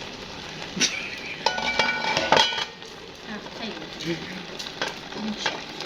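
A metal spoon stirring and clinking against a cooking pot of saag, with a cluster of ringing clinks about two seconds in.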